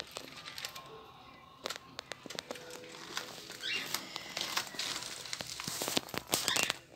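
Budgerigars chattering and chirping in a wire cage, mixed with many scattered sharp clicks and crackles.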